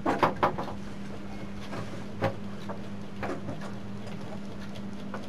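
A steady low hum, with a few short knocks and clicks from handling close to the microphone, several in the first half second and single ones about two and three seconds in.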